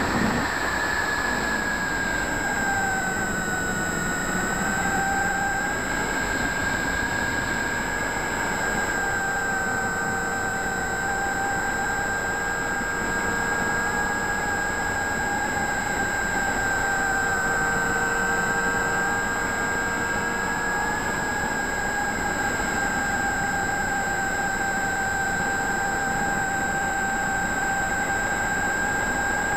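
Multiplex FunCub RC floatplane in flight, heard from the onboard camera. Its brushless electric motor and propeller whine steadily over a steady hiss, dipping slightly in pitch a few seconds in and then holding.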